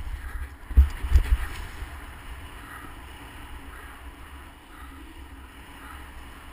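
A motorcycle riding a dirt track, its running drowned under heavy wind rumble on the microphone, with a few hard thumps in the first second and a half before the noise settles to a steady rush.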